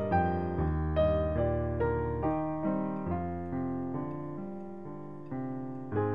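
Slow piano music: notes and chords struck one after another and left to fade before the next.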